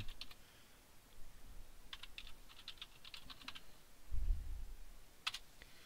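Typing on a computer keyboard: a few keystrokes at the start, then a quick run of them about two seconds in. A low thump comes about four seconds in, and a single sharp click near the end.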